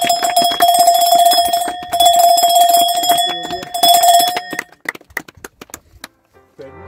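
Applause with a bell ringing steadily over it; the ringing and most of the clapping stop just past four seconds in, leaving a few scattered claps. Soft music fades in near the end.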